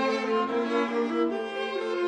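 Background music: several held notes sounding together and moving in steps every fraction of a second.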